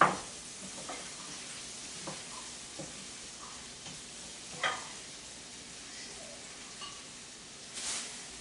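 Chopped onions and garlic frying in bacon fat in a pan over raised heat: a steady sizzle. A few sharp knocks of a utensil stirring against the pan, the loudest right at the start and another about halfway through.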